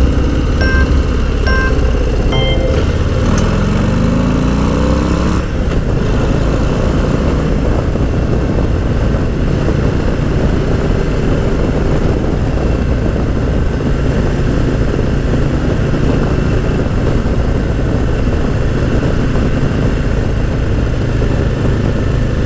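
Harley-Davidson Low Rider ST's Milwaukee-Eight 117 V-twin under acceleration: its pitch climbs for a couple of seconds about three seconds in, then drops at an upshift. It then runs steadily at cruising speed.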